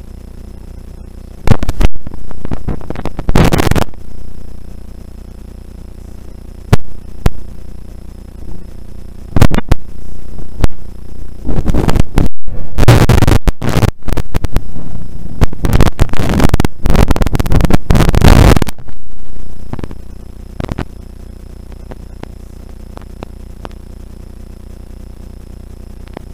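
Rally car at speed on a snowy stage, heard only through a heavily distorting microphone: a steady low hum with loud crackling bursts of noise for most of the first nineteen seconds, then just the hum.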